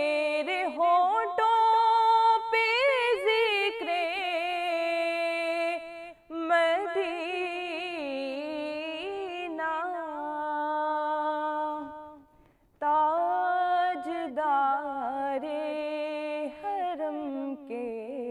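A woman singing a naat, an Urdu devotional song in praise of the Prophet Muhammad, in long ornamented phrases with wavering held notes. The voice breaks off briefly about six and twelve seconds in.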